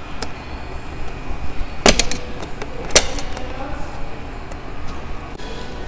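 Plastic retaining clips on a car seat-back cover snapping free as a hose pick pries them loose: two sharp snaps about a second apart, with lighter clicks around them.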